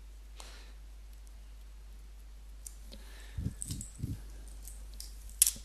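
Computer mouse clicks over a low steady hum: three dull knocks a little past halfway, then one sharp click near the end.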